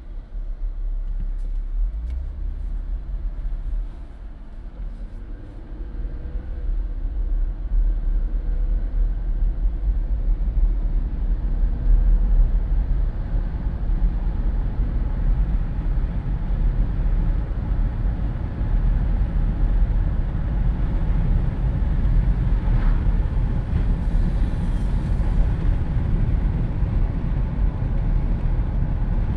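Wind rushing through the open windows of a moving Jeep Wrangler, over a heavy low rumble of road and engine noise. The rush dips briefly about four seconds in, then grows louder and holds steady.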